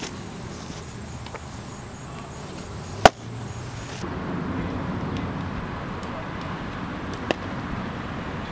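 A baseball pops sharply into a catcher's leather mitt about three seconds in, a single loud crack. A second, fainter sharp click comes near the end.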